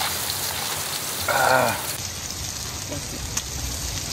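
Pork belly and onions sizzling on a small camping grill: a steady crackling hiss. A short vocal sound with a falling pitch comes through about a second and a half in.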